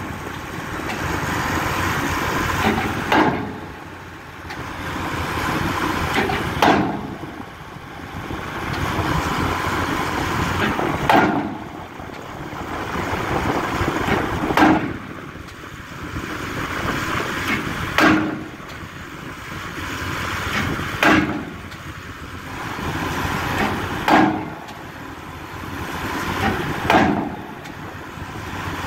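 A 16-ton pile hammer driving a pile casing into the ground: about eight heavy blows, one every three to four seconds, with a steady mechanical noise that swells between blows.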